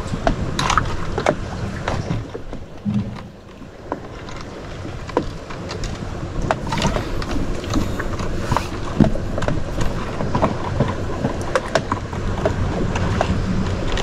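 Small boat sitting in shallow mangrove water: water lapping at the hull, with scattered small knocks and clicks over a steady low rumble. There is a brief lull about three seconds in.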